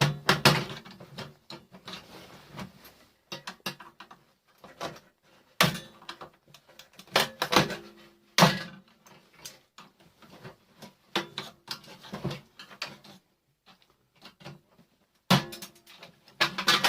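Irregular knocks and metallic clinks of small metal parts and hand tools being worked loose from a microwave's insides, a few louder strikes ringing briefly.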